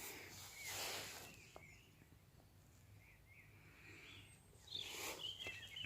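Faint outdoor ambience: a few short, high bird chirps over a soft hiss, with swells of rushing noise about a second in and again near the end.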